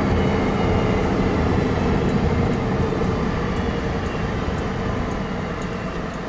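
Heavy diesel truck engine running under load with a steady low rumble, slowly fading towards the end.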